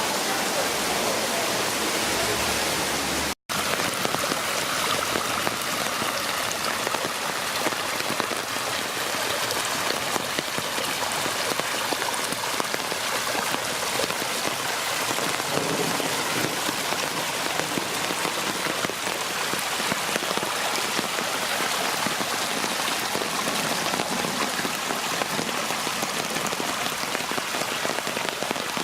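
Steady rain falling and splashing on city surfaces, an even hiss of many drops. The sound cuts out for an instant about three seconds in.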